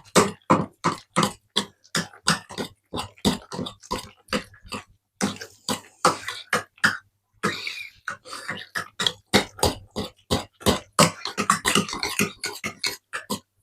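A spoon stirring a thick vegetable, potato and gravy pasty filling in a pan, with quick repeated strokes about two to three a second and brief pauses, as instant mashed potato is worked in to thicken it.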